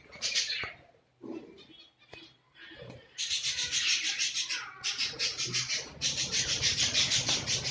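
A fast, rhythmic rasping scratch, about seven strokes a second, starting about three seconds in after a brief noise and a quiet gap.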